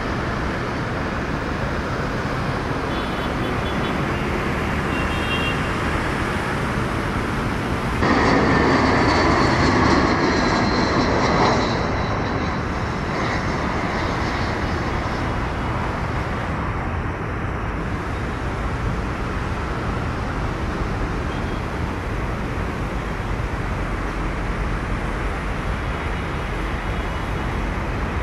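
Jet airliner engine noise, a steady rushing sound, with a louder stretch of about three and a half seconds that starts suddenly about eight seconds in.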